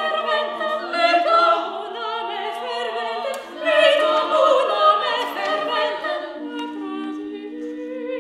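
Women's vocal ensemble of sopranos, mezzos and altos singing a cappella in several parts. About six seconds in the singing grows quieter and settles into lower held notes.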